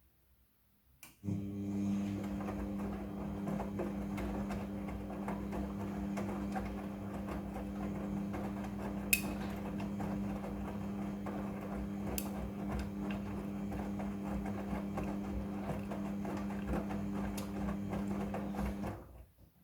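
Midea front-loading washing machine running its drum motor in a wash cycle: a steady hum with scattered clicks and knocks that starts about a second in and stops abruptly near the end, with one sharp click around the middle.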